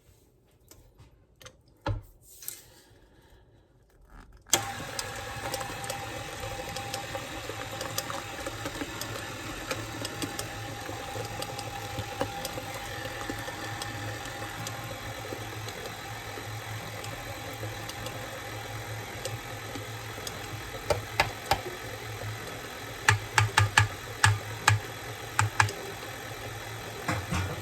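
Electric mixer switched on about four and a half seconds in and running steadily, beating a thick brownie batter until it is combined. Several sharp knocks come near the end.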